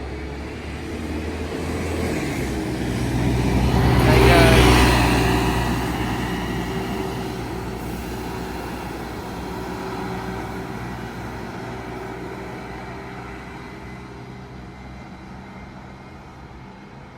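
A bus engine passing close by, loudest about four seconds in, then fading slowly as it drives away.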